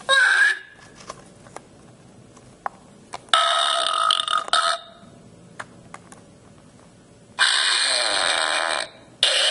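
Novelty 'Disgusting Sounds' keychain playing short recorded gross sound effects through its tiny speaker as its buttons are pressed. Each clip lasts about a second and a half, with small plastic button clicks in the gaps between them.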